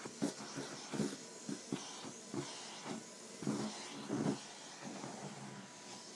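Vacuum cleaner running with a steady hiss. Irregular short rubbing and bumping sounds come over it as the nozzle is drawn over a cat's fur, most of them in the first four seconds.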